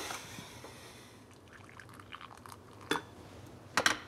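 A small splash of hot water poured from a glass electric kettle into a small bowl, then two sharp clinks of crockery about a second apart near the end.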